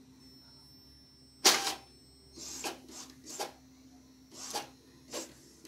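Epson L3110 ink-tank printer working through a colour copy: a low steady hum with about six short mechanical whirs and clacks as the print head carriage moves, the loudest about one and a half seconds in.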